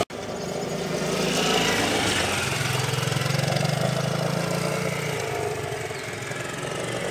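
Maxi-scooter engine running as the scooter rides past on wet paving and away, a steady hum that swells a couple of seconds in and eases off towards the end.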